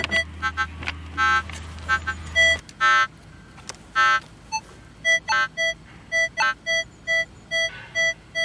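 Minelab CTX 3030 metal detector sounding target tones over a buried signal. Bursts of electronic beeps come at first, then from about halfway a steady run of same-pitched beeps, three or four a second. It is a mid-range tone that reads like a gold ring.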